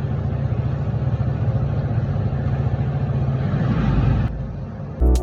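Hero Splendor motorcycle engine running steadily, then dropping away about four seconds in.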